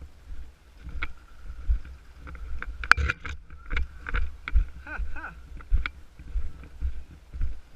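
Footsteps of a player walking at a steady pace, each step a low thump on the body-worn microphone, with gear rattling and clicking; one sharp click stands out about three seconds in.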